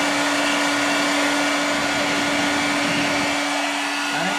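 Handheld hair dryer running steadily on heat, a rush of blown air with a steady hum under it, warming the adhesive tape on a windscreen bracket.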